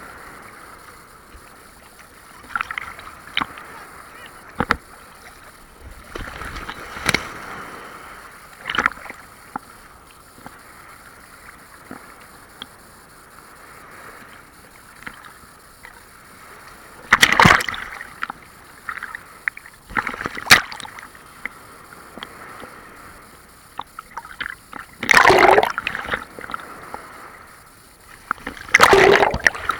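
Big sea waves washing and splashing in a steady rush, with several loud sudden splashes in the second half.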